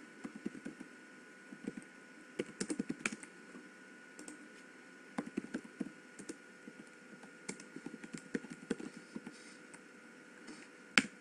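Computer keyboard typing in irregular short bursts of keystrokes as a command is entered, with one sharper, louder click near the end. A faint steady high tone runs underneath.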